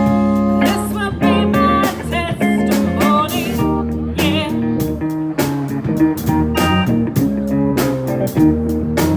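A band playing a song: a guitar carries the melody with wavering, bent notes over a bass line and regular drum hits.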